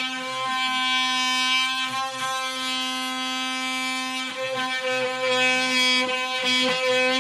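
DeWalt oscillating multi-tool running steadily with a high buzzing whine while its blade cuts through the base of a kitchen cupboard, the sound dipping and swelling as the blade bites.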